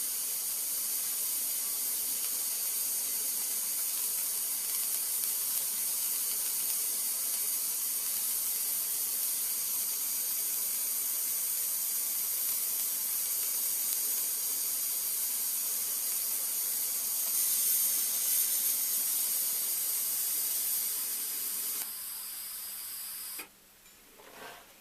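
TIG welding arc on stainless steel hissing steadily as a single continuous weld is run around a hygienic pipe fitting. Near the end the arc stops: the hiss drops to a softer level for about a second and a half, then cuts off.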